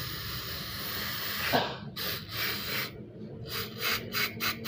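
Aerosol carburetor cleaner spraying onto a mass airflow sensor to clean it: one steady hiss for about two seconds, then a quick series of short spurts.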